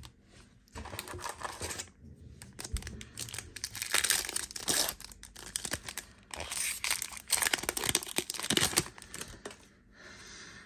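Foil wrapper of a Panini Contenders Football trading-card pack being torn open and crinkled by hand, in a run of crackling bursts that die down near the end.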